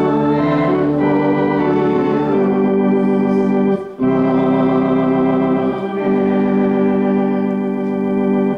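Organ playing slow, sustained chords, with a brief break just before four seconds in; the music stops at the very end.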